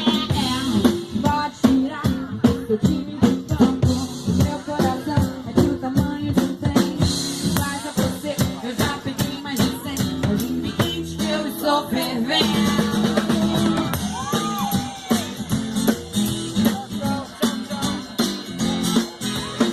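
Music with singing, drums and guitar, with a steady drum beat throughout.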